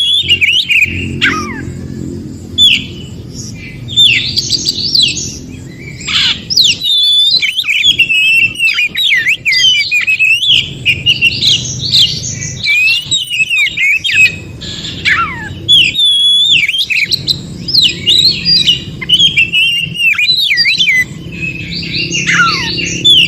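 Oriental magpie-robin (kacer) singing a continuous, varied song of loud whistles and quick rising and falling notes, with brief pauses. There is low background noise that comes and goes.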